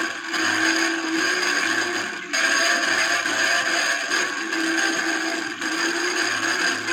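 A 1940s record playing on a turntable through a homemade brick-built arm: thin music buried in a steady, heavy hiss and scratch from the groove.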